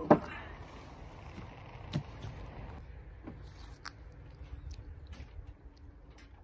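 A sharp knock near the start and a softer one about two seconds in, from a power drill being handled and set down on pine boards.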